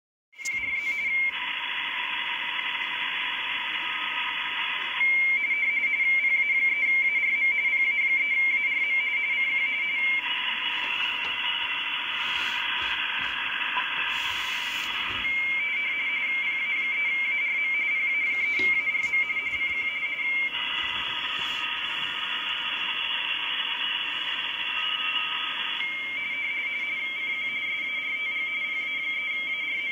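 Amateur radio RTTY signal from an Icom IC-7100's speaker on the 40 m band: a station calling CQ, sent as a fast warbling two-tone teletype data signal. The warbling alternates every few seconds with stretches of receiver hiss.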